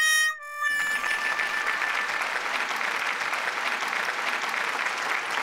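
A few held musical notes end under a second in, then steady applause, evenly crackling without pause.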